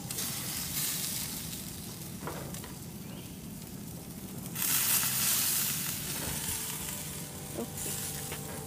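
Steaks and a skewer of shrimp sizzling on a gas grill's grates. About halfway through there is a louder stretch of hissing that lasts a second or so.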